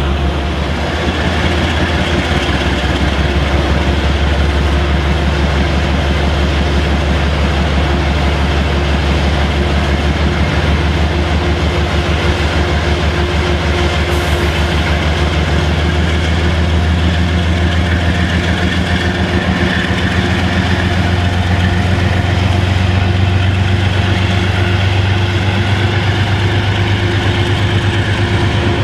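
Metro-North GE Genesis P32AC-DM diesel locomotive's engine running with a deep, steady drone, rising in pitch a little past the middle as it throttles up.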